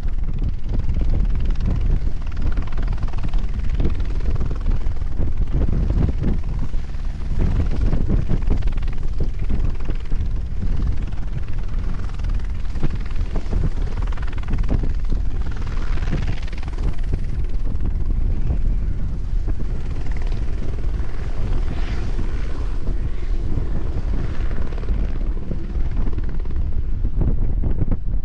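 Helicopter rotor beat, steady and loud, from a helicopter lifting ton bags of granite up the mountain.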